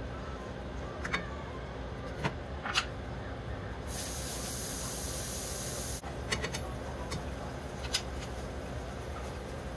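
Vegetables and sauce simmering and sizzling in a skillet with a steady hiss. A spatula clicks against the pan a few times. For about two seconds in the middle a brighter hiss of steam rises, then cuts off suddenly.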